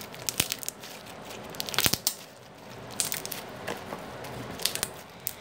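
Homemade clear glitter slime being squeezed and poked by hand, giving irregular crackling clicks and small pops, the loudest cluster about two seconds in.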